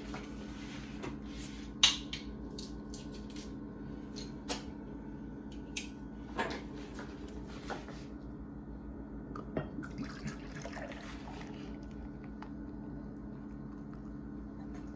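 Scattered light clinks and taps of tableware, the sharpest about two seconds in, with beer being poured from a glass bottle into a glass, over a steady low hum.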